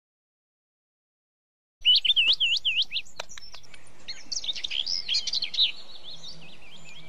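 Silence for about two seconds, then birds singing: quick, repeated rising-and-falling whistled notes with other chirps overlapping.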